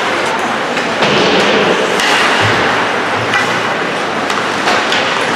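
Ice hockey rink din during play: a steady wash of spectators' voices in a large hall, broken by several sharp knocks.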